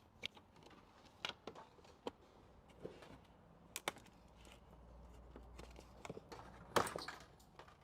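Scattered light clicks and knocks of hands and tools working on a pickup truck's front-end trim, with a louder clatter about seven seconds in.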